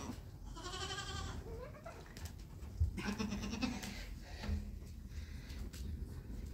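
Young goat kids bleating: a long quavering bleat about half a second in, another about three seconds in, and a short call a moment later.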